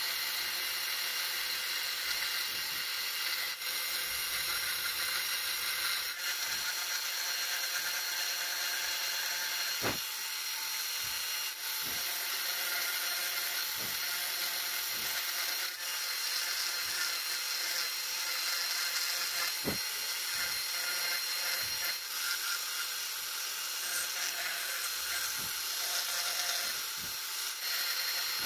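Handheld rotary tool with a fine tapered burr running at high speed and grinding into mesquite wood. It makes a steady high whine.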